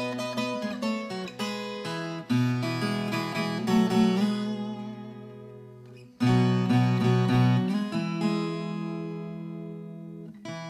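Acoustic guitar music with strummed and plucked chords. It fades toward the middle, then a new strum comes in loudly about six seconds in.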